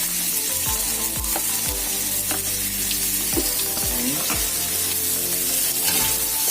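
Chopped vegetables (cabbage, tomato and mustard greens) sizzling in hot oil as they are stir-fried, with a spatula clicking against the pan as it stirs. Background music with a bass beat runs underneath.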